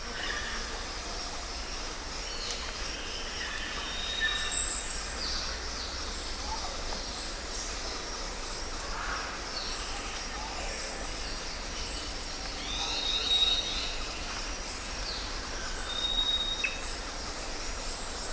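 Rainforest ambience: a steady background hiss with scattered bird calls over it, including a louder high call about five seconds in and a short, high, steady whistle that comes back several times.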